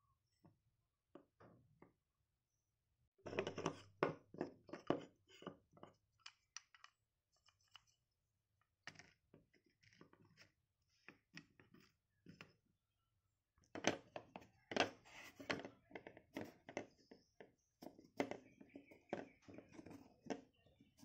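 Small wooden toy parts clicking and knocking together as they are handled on a workbench, in two busy spells of quick light taps.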